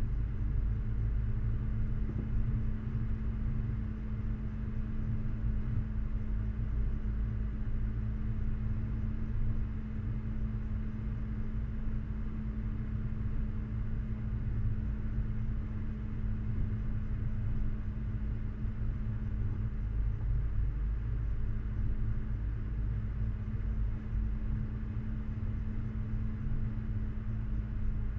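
4x4 vehicle driving uphill on a rough, rutted dirt track: the engine runs steadily under load with a steady hum over a low rumble.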